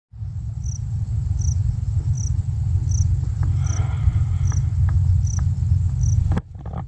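A low, uneven rumble of wind buffeting the microphone on an open hilltop, with an insect chirping high and evenly, about once every three quarters of a second. It breaks off suddenly near the end.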